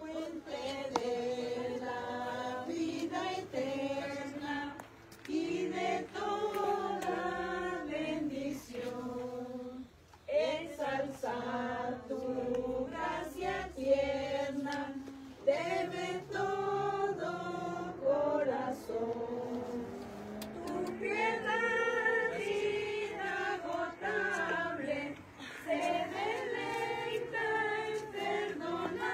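Congregation singing a hymn together, many voices holding long notes line by line with short breaks between phrases.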